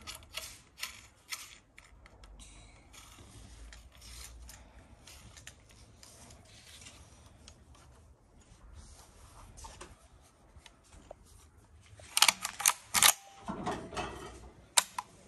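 Metal parts of a Kral A12 shotgun being handled and fitted together: scattered light clicks and scraping, then a quick run of loud, sharp metallic clacks about twelve seconds in, with one more near the end.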